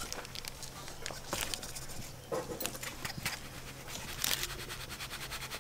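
Atta flour being sifted by hand through a plastic sieve over a steel plate: soft scratching and tapping that turns into a rapid, even patter near the end.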